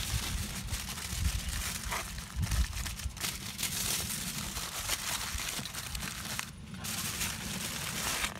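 Aluminium foil being crinkled and folded by hand into a wrapped parcel, a continuous rustling crackle of foil.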